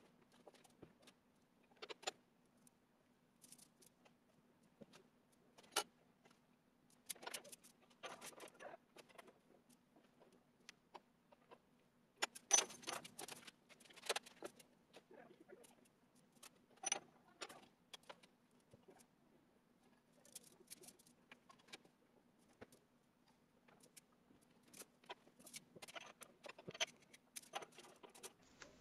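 Scattered metallic clinks, taps and short scrapes of soft copper tubing being bent and handled around a pipe mandrel clamped in a bench vise, over a faint steady hum.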